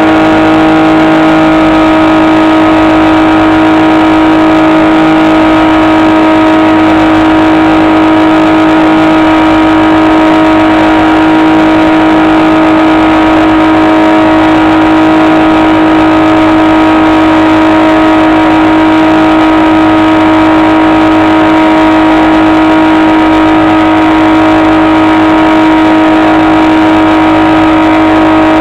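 Electric motor and propeller of a HobbyKing SkyEye FPV plane running at steady throttle: a loud, continuous whine that holds one pitch.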